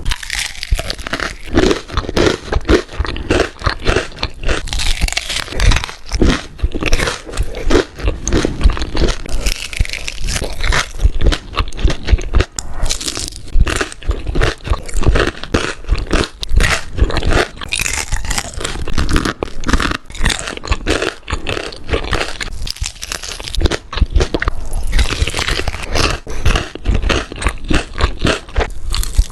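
Close-miked chewing of crunchy food: continuous loud, crisp crunches and crackles from biting and chewing, with no pause.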